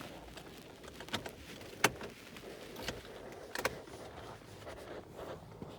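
A few sharp clicks and light knocks inside a car, the loudest about two seconds in: the ignition key being turned and the dashboard's service-reset button being pressed and held.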